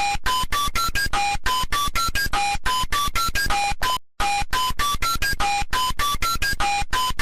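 Emergency alert (EAS-style) alarm: a fast run of short, buzzy electronic beeps at changing pitches, about seven a second, the same phrase repeating about once a second. It cuts out briefly about four seconds in.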